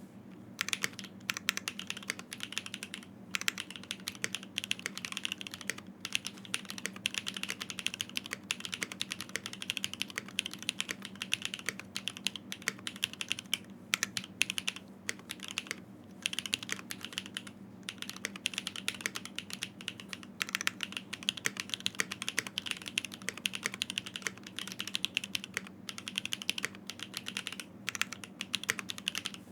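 Continuous fast typing on a custom 65% mechanical keyboard with linear Gateron Azure Dragon switches and GMK doubleshot ABS keycaps, in an acrylic case with an FR4 plate: dense key clacks with brief pauses between bursts, stopping at the end.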